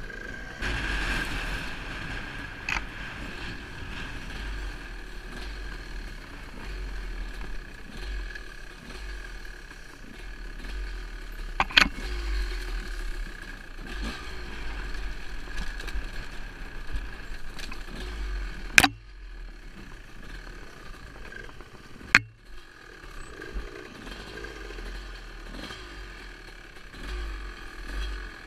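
Enduro dirt bike engine running on a rough trail ride, with a low rumble underneath. Three sharp knocks cut through it, one about halfway through and two more later on.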